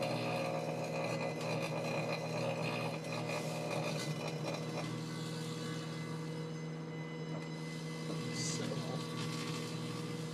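Microwave oven running with a steady electrical hum, with irregular crackling from a light bulb burning and arcing inside it, stronger in the first half.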